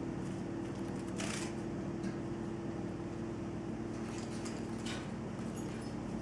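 Small clicks and scrapes of a yellow-sided conure's feet and beak on metal cage bars as it climbs, with two short rustling scrapes about a second in and near five seconds, over a steady low hum.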